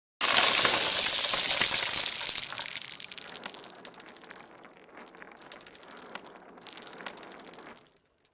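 Many small hard balls landing at once in a sudden, loud clatter. It thins over a few seconds to scattered rattles and clicks as the last balls bounce and drop away, then stops just before the end.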